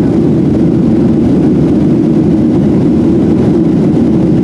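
Steady cabin rumble inside a Boeing 737-700 from its twin jet engines and rushing air, heard from a window seat, with no change in pitch or level.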